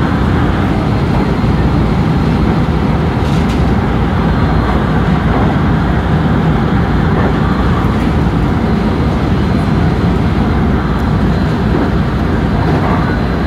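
Steady running noise of a JR West 223 series electric train under way, heard from inside its front cab car: a continuous rumble of wheels on rail with no distinct events.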